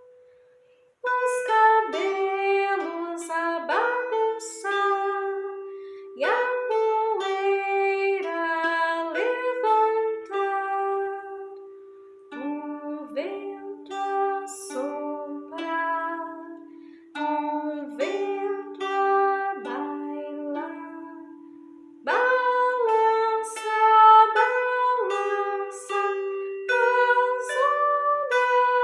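Pentatonic kantele playing a slow melody in short phrases of plucked, ringing notes, with a brief pause between phrases.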